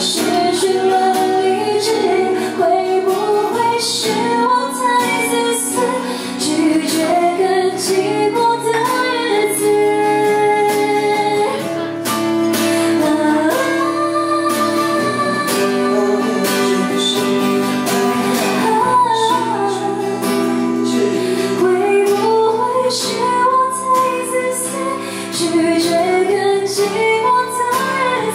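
A woman singing a song into a microphone, accompanied by a strummed acoustic guitar, in a live amplified performance.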